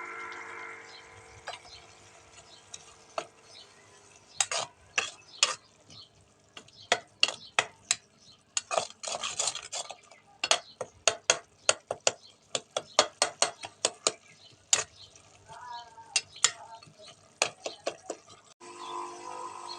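A metal spoon stirring food in a cooking pan, clinking and knocking against the pan over and over, about two or three strikes a second, with food sizzling faintly in between. A steady hum at the start stops about a second in.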